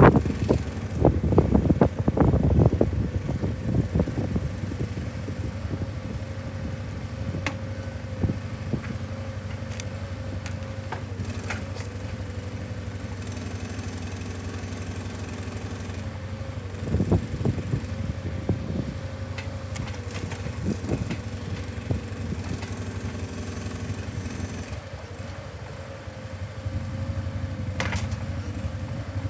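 ATV engine running steadily while a hydraulic timber crane on its trailer lifts and lays logs. A thin whine comes and goes as the crane works, and clusters of heavy knocks from the logs and grapple come at the start and again a little past halfway.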